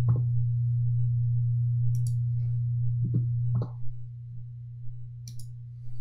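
Several short clicks from Stream Deck keys and a computer mouse, about five in all, over a steady low hum that drops sharply in level a little past halfway.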